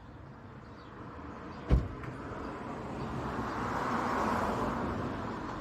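A single sharp thump, then a vehicle's steady rushing noise that grows louder over a few seconds.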